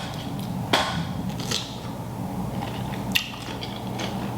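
Close-up eating sounds from a seafood boil: a few short, sharp crackles and smacks, about three in four seconds, over a steady low hum.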